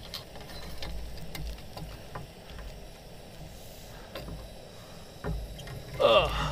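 Light metallic clicks and clinks of steel tongs and a wire fish-grilling basket being opened and handled, over a faint low rumble. A brief vocal sound near the end.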